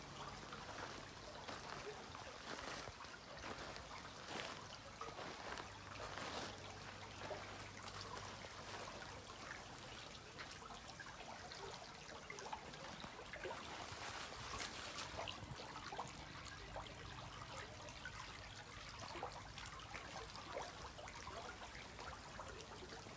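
Small river flowing over stones: a steady, fairly quiet rush and trickle of water, with scattered brief clicks.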